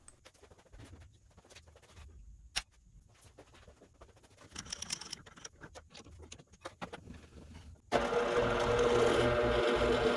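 Faint clicks and handling, then about eight seconds in a drill press switches on suddenly and runs with a loud, steady motor hum, to drill the wire hole in an epoxy resin shift knob.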